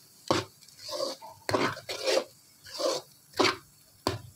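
Slotted metal spatula stirring and scraping a thick, pasty filling around a kadai, in repeated scraping strokes about two a second.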